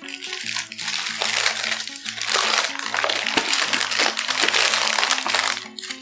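Crinkling and rustling of a takeaway nasi lemak packet's wrapping as it is opened, over background music with a steady bass line.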